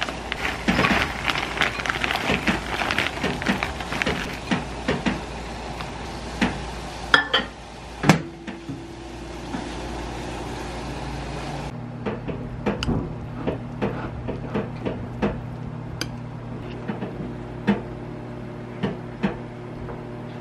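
Plastic food pouch crinkling as it is handled and opened, then after a break a microwave oven humming steadily as it heats the konjac fried rice, with scattered light clicks and knocks.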